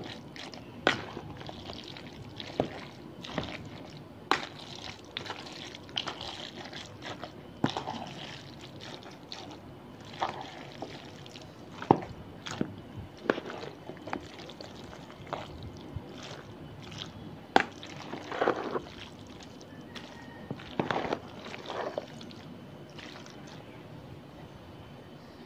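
A large spoon stirring mayonnaise-dressed macaroni salad in a plastic basin: wet squishing and sloshing with irregular clicks and knocks of the spoon.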